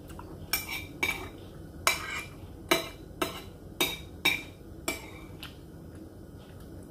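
Cutlery clinking against a dish while eating, about eight sharp clinks spaced roughly half a second to a second apart.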